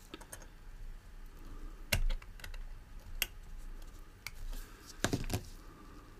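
Scattered small clicks and taps of a watch crown stem and tools being handled against a watch movement as the stem is pushed back in, strongest about two seconds in and again around five seconds in.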